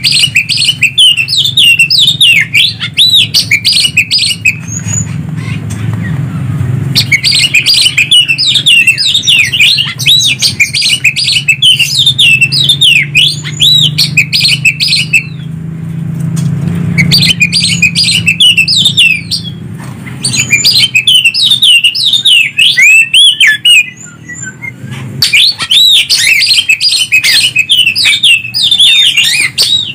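Loud, fast song of greater green leafbird (cucak ijo) and oriental magpie-robin (kacer) answering each other, in several long bursts of rapid whistles and chirps with short pauses between, over a steady low hum.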